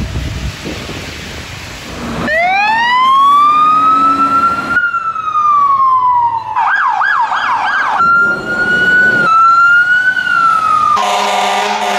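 Traffic rumble on a wet street, then short clips of fire-truck sirens cut together. A siren winds up about two seconds in, then comes a falling wail, a fast yelp, and steady wail tones. Near the end there is a blast of an air horn.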